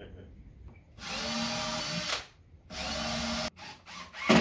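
Power drill driving screws in two runs of about a second each, with a steady motor whine. The second run cuts off suddenly, followed by a few light clicks.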